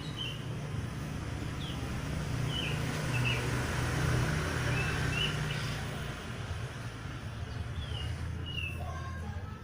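Small birds chirping in short, high calls scattered throughout, over a steady low engine rumble that grows louder for a couple of seconds about three seconds in, like a passing vehicle.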